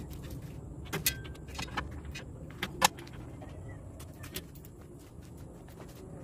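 Scattered metal clicks and clinks of bolts and tools handled against the steel chamber of an offset smoker during assembly, the loudest about three seconds in, followed by a run of quicker light ticks. A steady low hum runs underneath.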